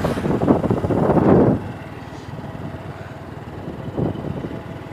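Vehicle running, with wind buffeting the microphone. Loud for about the first second and a half, then dropping to a steadier, quieter rumble.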